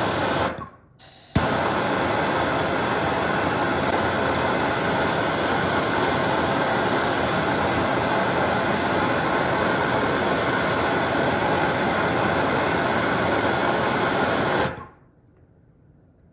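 Handheld gas soldering torch burning with a steady hissing flame as it heats a brass sweat fitting for soldering. It goes out briefly just after the start, comes back sharply about a second and a half in, and is shut off near the end.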